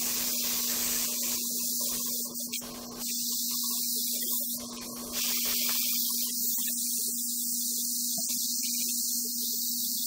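Airbrush spraying paint with a steady high hiss, easing off briefly about two and a half seconds in, over a steady low hum.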